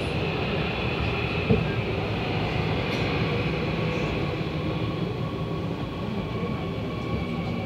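Seoul Subway Line 2 train running, heard from inside the car as it pulls into a station: a steady rumble of wheels on the rails with a whine from the motors, and a single clunk about a second and a half in.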